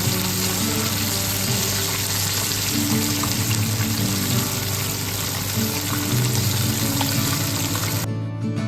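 Chicken karaage pieces frying in hot oil: a steady, dense sizzle that cuts off suddenly near the end.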